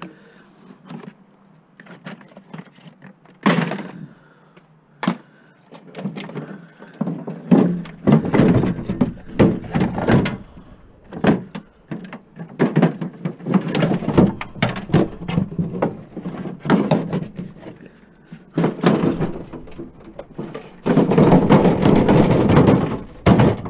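Metal and plastic parts of a greasy appliance being handled and pulled apart: irregular clunks, knocks and rattles, with a loud scraping stretch near the end as the plastic blower housing is wrenched out of the sheet-metal case.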